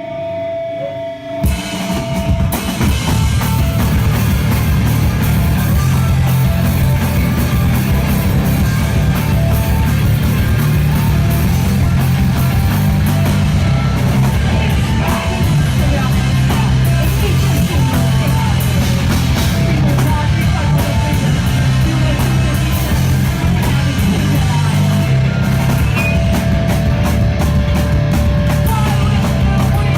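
Live rock band playing loud with drum kit and electric guitars. A single held tone sounds first, and the full band comes in about two seconds in.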